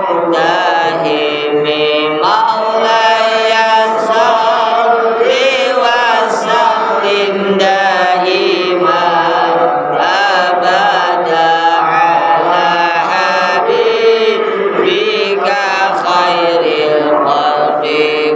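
Melodic Arabic chanting of Islamic istighosah supplication and dhikr, with continuous sung voice lines.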